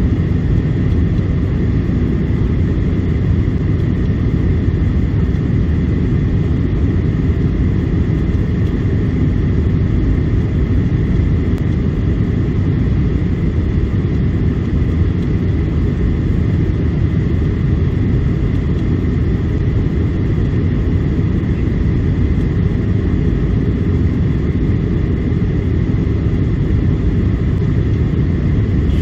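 Steady rumble of a Boeing 737-800 in flight: engine and airflow noise heard inside the cabin, deep and unchanging, with a faint steady whine above it.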